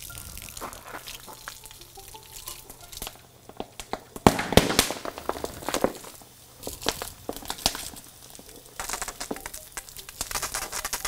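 Molten sodium metal reacting with water sprayed from a garden hose: irregular sharp pops and crackles over a sizzling hiss, with the loudest burst of pops about four seconds in.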